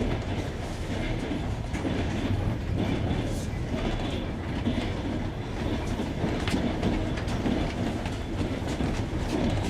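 Passenger train's wheels clicking over the joints of jointed (bolted) rail, over a steady rolling rumble, heard from inside the carriage.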